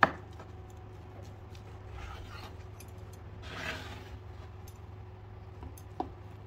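Kitchen knife cutting through the crisp crust of a baked saffron rice cake on a wooden cutting board: faint scraping crunches about two seconds in and again around three and a half to four seconds, with a sharp knock of the blade on the board at the start and a lighter one near six seconds.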